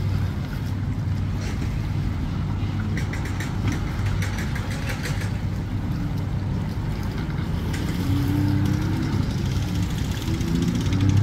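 Sea-Doo personal watercraft engine running at low speed while it is driven onto its trailer, with throttle bursts rising in pitch from about eight seconds in.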